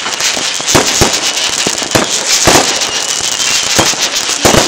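Fireworks display going off: a dense, continuous crackle with repeated sharp bangs from bursting shells, several in some seconds.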